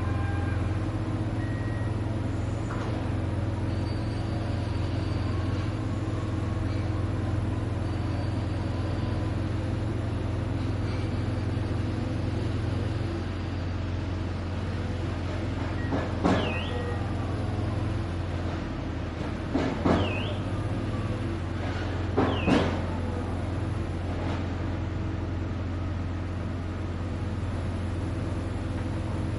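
Steady low rumble of urban construction machinery and traffic. About 16, 20 and 22 seconds in come three short, sharp sounds, each with a brief high squeal; these are the loudest moments.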